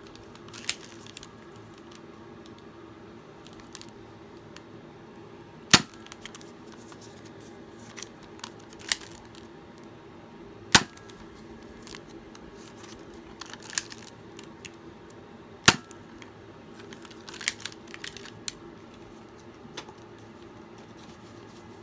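Spring-powered Nerf Glowshot dart blaster making sharp plastic clicks and snaps as it is worked. The three loudest snaps come about five seconds apart, with lighter clicks in between.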